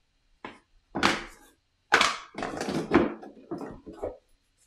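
Thick cardboard game boards being handled and set down: a string of about six short, dull knocks and rustles, the loudest two to three seconds in.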